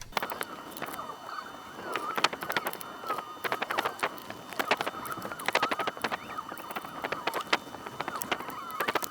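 Screws being driven into the metal chassis of a Panasonic DVD recorder to ground the power-supply board: a run of irregular clicks and scrapes, with a wavering squeak of metal turning on metal throughout.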